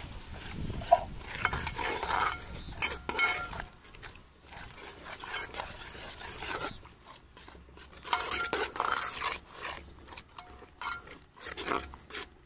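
Steel ladle stirring a watery chili gravy in a large metal pot, scraping and knocking against the pot's sides and bottom in irregular strokes, some of them ringing briefly.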